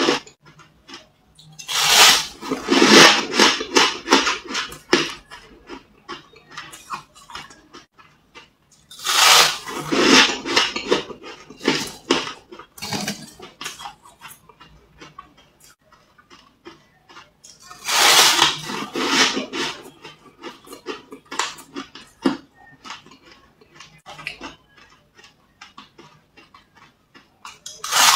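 Fluffy freezer frost bitten and chewed close to a clip-on microphone: dense crunching in three bursts, about two, nine and eighteen seconds in, with quieter scattered crunches between, and another bite starting right at the end.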